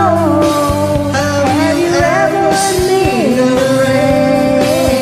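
Rock music: a long held melody line that slides down in pitch near the start and again about three seconds in, over the band's steady backing.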